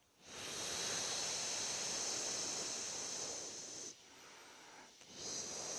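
A long whispered "heee" breathed out, the Taoist triple warmer healing sound, lasting about three and a half seconds. A second whispered exhalation begins about five seconds in.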